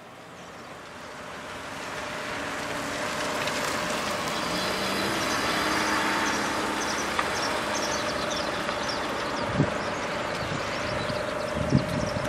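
Outdoor vehicle and traffic noise: a steady hiss with a faint hum running through it, fading in over the first couple of seconds. A couple of dull knocks come near the end.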